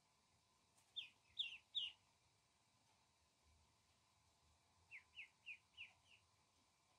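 Duckling peeping: a few short, falling peeps about a second in, then a run of five evenly spaced peeps near the end.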